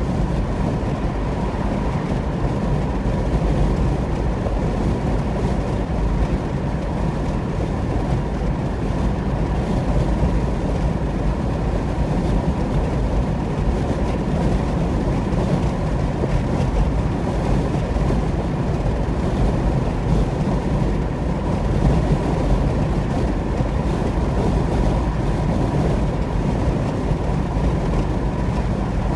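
Steady road and tyre noise of a car travelling at highway speed: an even low rumble with no breaks or changes.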